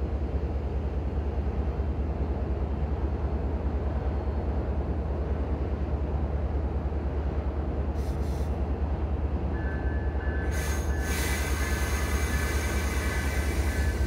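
MBTA commuter train standing at a station platform with its steady low engine drone. About ten seconds in, a high steady whine and a loud hiss start up over it.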